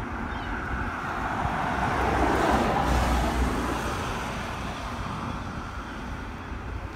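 A passing road vehicle: its noise swells to a peak about two to three seconds in and then slowly fades away.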